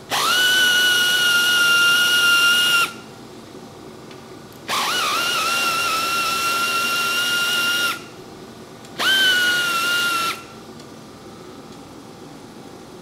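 A cordless power driver running three times, about three, three and one and a half seconds long, each spinning up quickly to a steady high whine, as it spins out 12 mm bolts.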